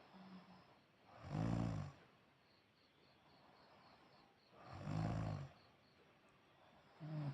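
A man snoring in his sleep: two long, low snores about three and a half seconds apart, then a shorter one near the end.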